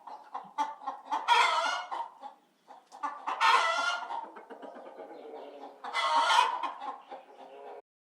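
Chicken clucking, with three loud squawking calls about two seconds apart and quieter clucks in between; it stops shortly before the end.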